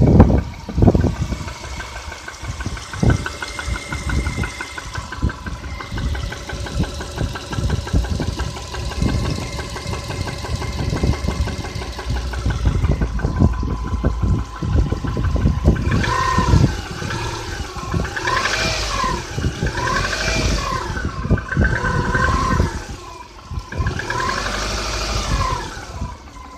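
Subaru EJ251 2.5-litre flat-four engine running with a knock, in an engine that was rebuilt and has since covered 5,000 km. In the second half it is revved up and down several times.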